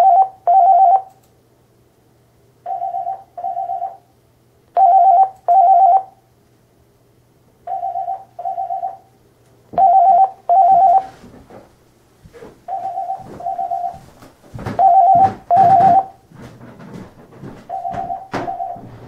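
Electronic office telephone ringing in a double-ring pattern: pairs of short warbling trills repeating every couple of seconds, alternating louder and softer pairs. In the second half some knocks and background noise fall between the rings.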